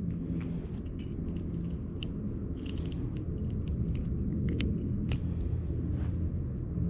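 Close handling noise of hands unhooking a small crappie: a scatter of sharp little clicks and crackles, several between about two and five seconds in, as a soft-plastic jig is worked free of the fish's mouth, over a steady low rumble.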